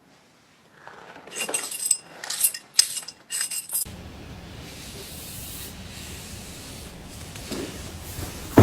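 Scissors cutting through a thick hank of hair: a run of rasping, faintly metallic snips starting about a second in and stopping after about two and a half seconds. A steady hiss follows.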